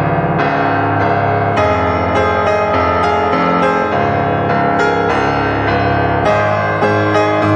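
Background piano music, slow chords played one after another.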